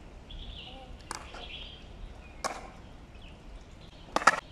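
Skateboard clacking on paving stones: a couple of light clicks, then a quick cluster of sharp clacks near the end.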